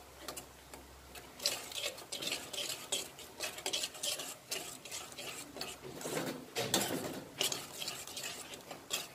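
A steel spoon stirring a wet masala in a stainless steel kadai, scraping and clinking against the pan in irregular strokes.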